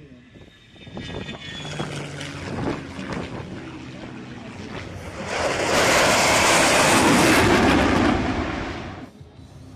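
Jet noise from an A-10 Thunderbolt II's twin General Electric TF34 turbofans as it flies past low: a building roar that swells to its loudest from about five to eight seconds in, then cuts off abruptly about nine seconds in.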